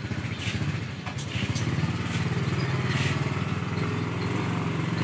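A small engine running with a rapid, steady beat, getting louder about a second and a half in, with a few light knocks in the first second or two.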